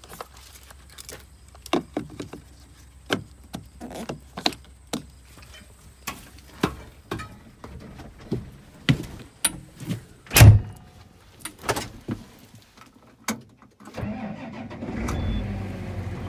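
A run of handling clicks and knocks with one heavy thud about ten seconds in, then near the end an engine starts and settles into steady running.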